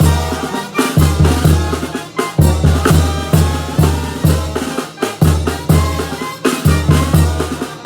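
Sinaloan banda brass band playing live: a tuba bass line in a steady beat of about two notes a second, with tambora drum and cymbal hits under the brass and reeds.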